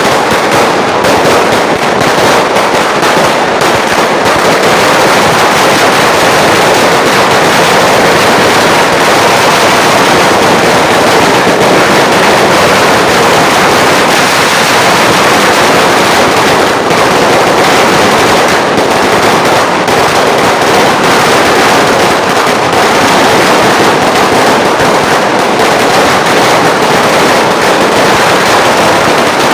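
A 3,000-round 'sawa' firecracker string going off in a rapid, unbroken stream of loud pops.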